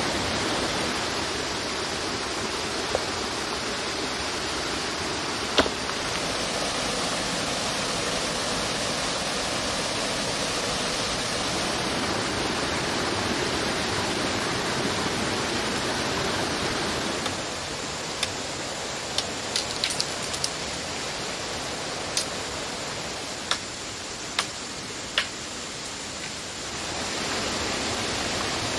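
Steady rush of running stream water, with a few sharp knocks and snaps of wood, one early and a cluster later on.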